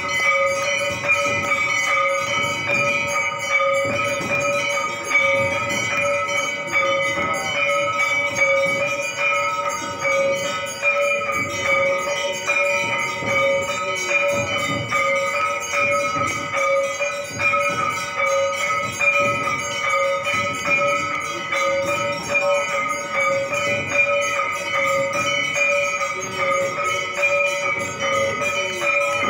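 Hindu temple aarti bells ringing rapidly and without pause: a steady ring under a dense clatter of jingling strokes.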